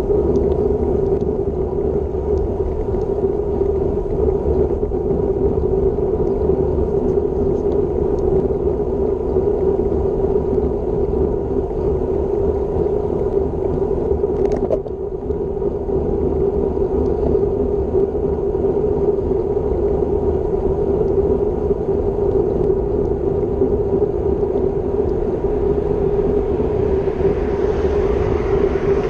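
Steady wind rush and tyre-on-road noise on a road bike's action camera at about 29 km/h, with one sharp click about halfway through and the hiss of an oncoming car swelling near the end.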